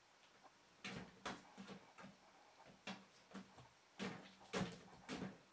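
The plastic flap door of a covered cat litter box clacking and rattling as a kitten bats it with its paw, in a string of short knocks with pauses between.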